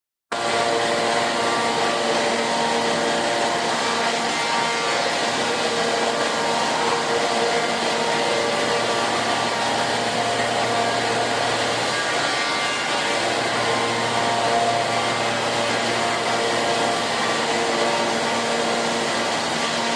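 SCM Accord 20 CNC router running: a steady machine whir with several constant humming tones over a broad rushing noise, starting abruptly just after the beginning.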